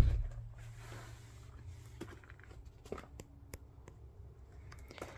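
Handling noise: a heavy low thump right at the start, then faint scattered clicks and rustles as the camera is moved about.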